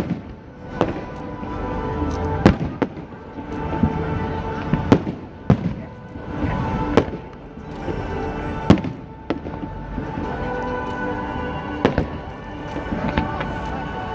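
Aerial firework shells bursting: a dozen or so sharp bangs at uneven intervals, with music playing underneath.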